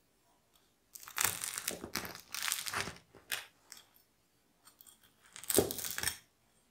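Knife cutting through the crisp crust of a baked rosemary focaccia on a wooden board: a run of crunchy sawing strokes, then one louder cut near the end.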